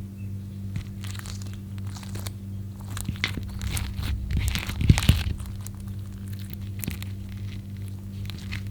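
Clear slime being squished and stretched by hand with makeup worked into it, giving irregular sticky crackles and pops that are densest about halfway through, over a low steady hum.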